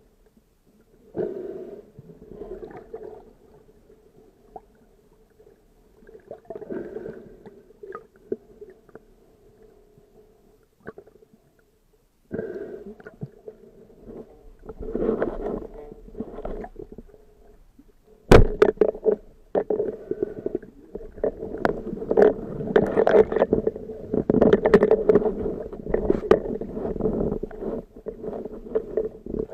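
Muffled underwater noise heard through the camera housing on a band-powered speargun, coming in patches as the diver moves. About 18 seconds in the speargun fires with one sharp crack, and a few seconds later a steady churning rises and continues as the speared mullet struggles on the line.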